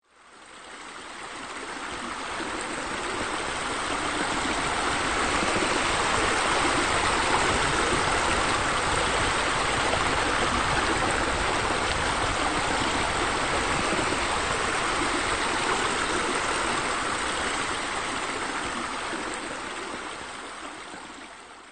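Steady sound of running, splashing water, like a stream or a spillway, fading in over the first few seconds and fading out near the end.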